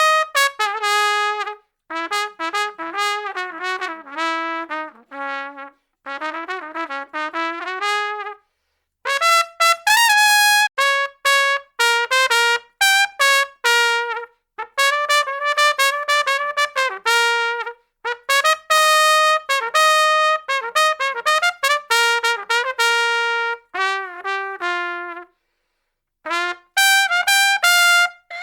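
A brass horn, trumpet-like, playing a string of short melodic phrases made of quick separate notes that step up and down in pitch, with brief pauses between phrases.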